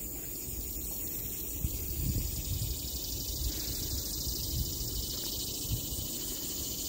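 Wind buffeting the microphone in gusts, with a steady high hiss over it.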